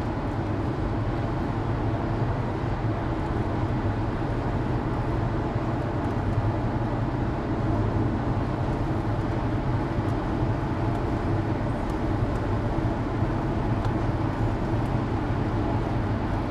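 Steady engine and road noise heard from inside a vehicle cruising at highway speed, an even low rumble with no distinct events.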